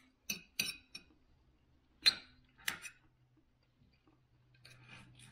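Fork and knife clinking and scraping against a plate: several sharp clinks, the loudest about two seconds in.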